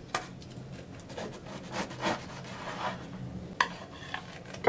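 A knife cutting through a crisp, crumbly apple tart crust, short dry crunching and scraping strokes, with a couple of sharp clicks of metal on the plate near the end as a cake server slides under the slice.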